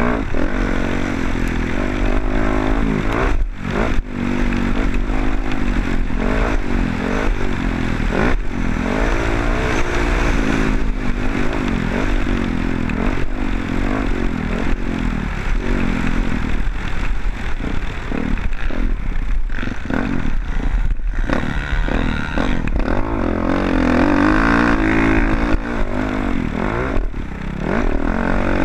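Motocross dirt bike engine revving hard and dropping off again and again as the bike is ridden around the track, with brief cuts in the sound and some clattering.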